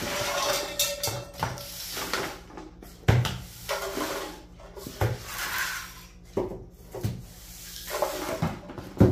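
Broom sweeping a floor: repeated scraping swishes of the bristles, broken by several sharp knocks and clatters, about five in all.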